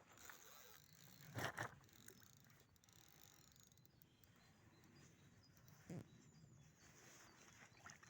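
Quiet outdoor background with a quick double knock about a second and a half in and a single knock near six seconds.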